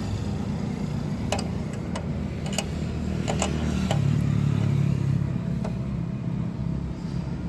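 Several sharp metallic clicks of a spanner working a motorcycle's chain adjuster bolt, over a steady low engine hum that swells for a second or so in the middle.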